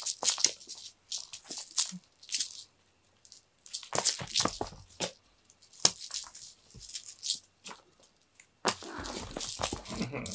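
A cat teaser wand being whipped about, its streamer making short rustling swishes in quick bursts, with a longer stretch of steady rustling near the end.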